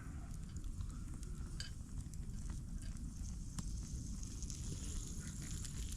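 Food sizzling while it cooks over a wood fire, with scattered sharp crackles and pops, over a steady low rumble.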